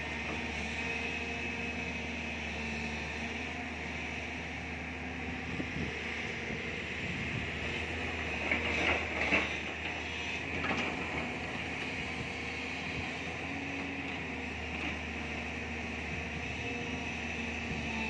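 Tracked JCB excavator's diesel engine running steadily under hydraulic load while it digs, with a cluster of sharp knocks and scrapes about nine seconds in and another near eleven seconds.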